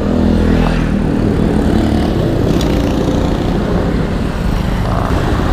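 Road traffic: a steady rumble of vehicle engines running close by, with one engine's hum standing out in the first couple of seconds and then fading.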